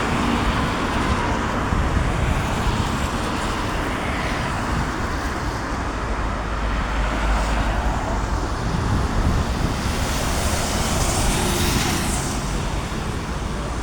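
Road traffic: a steady low rumble of engines, with vehicles passing, the loudest about eleven seconds in.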